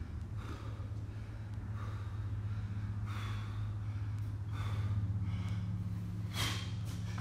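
Heavy, noisy breathing of a person winded from hard exercise: a breath about every second and a half, the strongest near the end, over a steady low hum.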